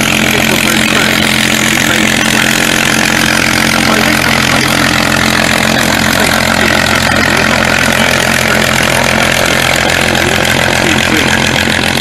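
Supermarine Spitfire Mk XIV's Rolls-Royce Griffon V12 engine running steadily at low power as the fighter taxis past close by, loud and even, with no change in pitch.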